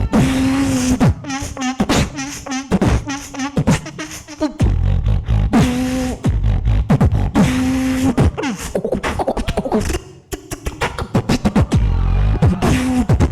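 Solo beatboxer performing a battle routine: heavy kick drums, held hummed bass notes, and sharp snares and clicks in a driving rhythm, with a run of fast wavering, trill-like sounds about two seconds in. The beat drops away briefly near the end before the kicks come back.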